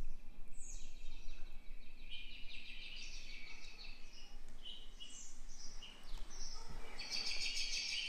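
Alarmy alarm-clock app's birdsong alarm tone playing from a smartphone's speaker: birds chirping and tweeting, starting about half a second in and growing fuller near the end.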